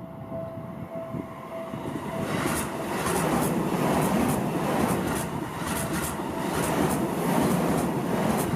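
Level crossing warning bell ringing in a steady repeating pattern, then from about two seconds in a Seibu Ikebukuro Line train runs through the crossing, drowning the bell, its wheels clacking in a regular rhythm over the rail joints.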